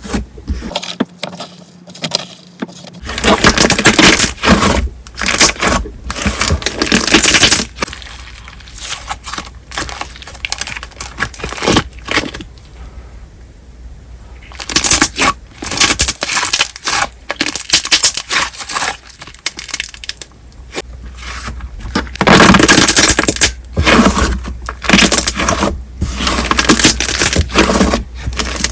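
Thick, glossy candle slime being stretched, folded and squeezed, its surface film bursting in dense runs of loud crackling and snapping pops as air is worked into it, with a quieter lull in the middle.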